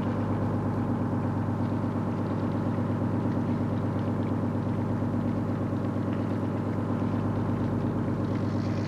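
Fishing boat's engine running steadily, an even low drone that holds one pitch throughout.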